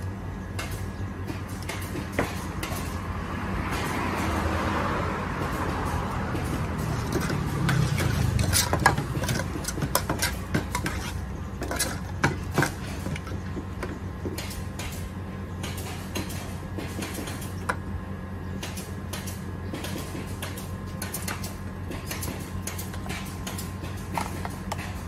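Metal spoon scraping and clinking against an aluminium pot while beef salad is tossed, sharpest around nine and twelve seconds in. A steady hum of road traffic runs underneath, swelling as a vehicle passes in the first several seconds.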